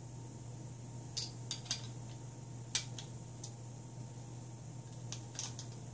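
Small metal parts clicking and clinking as a wrench works the nuts and washers on a 3D printer extruder's hobbed bolt: a scattered handful of sharp, light taps over a steady low hum.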